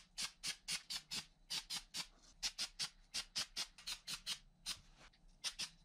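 Aerosol can of engine enamel spray paint hissing in many short, quick bursts, about four or five a second, while a color coat goes onto a brake master cylinder.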